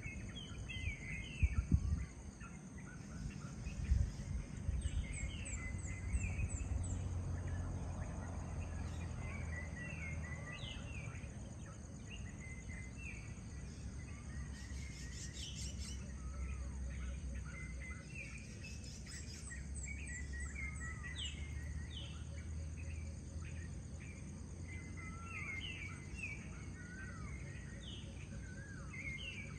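Dusk ambience: many small birds chirping and calling over a steady high insect trill, with a low steady rumble underneath. A few sharp knocks come in the first four seconds.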